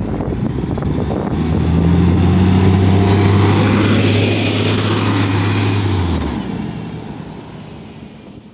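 A 2003 New Flyer D40LF transit bus, with a Cummins ISL diesel and a Voith automatic transmission, pulling away and passing close by. The steady low engine note comes in about a second in and is at its loudest a couple of seconds later. It drops off after about six seconds, and the sound then fades out as the bus moves away.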